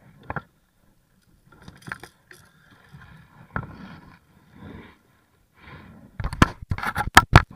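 Handling noises on a plastic fishing kayak: faint scrapes and rustles, then about six seconds in a quick run of loud, sharp clicks and knocks.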